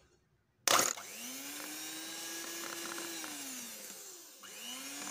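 Electric hand mixer switched on with a click, then its motor whining steadily as the beaters mix flour into cake batter. About four seconds in the motor winds down and drops out briefly, then spins up again.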